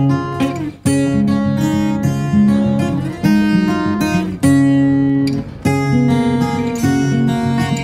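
Background music: acoustic guitar strumming and picking chords in a steady rhythm.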